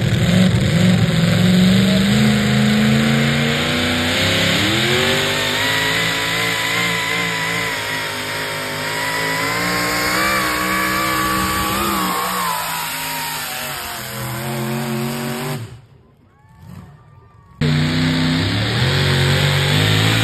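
Super modified four-wheel-drive pulling truck's engine running hard under load as it drags the weight sled: the revs climb about a quarter of the way in, hold high, then wind down. After a brief sudden drop-out, another pulling truck's engine runs at a steady low idle.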